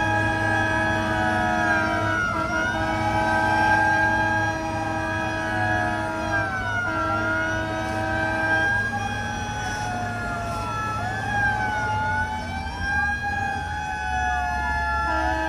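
Several fire truck sirens wailing at once, their pitches rising and falling out of step with each other over a steady held tone and a low engine hum.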